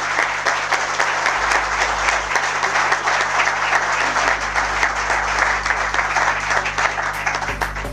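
Audience applauding, a dense round of clapping that thins into scattered separate claps near the end.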